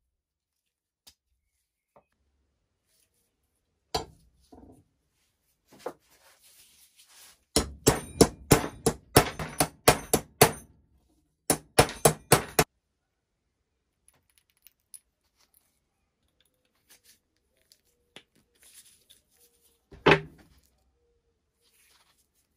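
Hammer blows on a rusty iron strap from an old stirrup water pump resting on a steel block: a quick run of about a dozen sharp metal strikes, a short pause, then a few more. A single ringing metal knock comes later.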